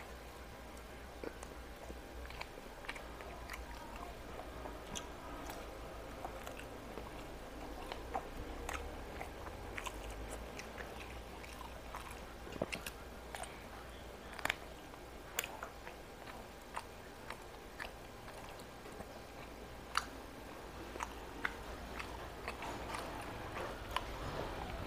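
A person chewing and biting food close to a clip-on microphone, with scattered sharp crunches and mouth clicks over a faint steady low hum.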